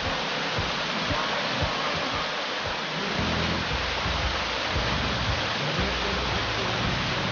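Steady rushing of a mountain creek's water, with low rumbling underneath; it cuts off suddenly at the end.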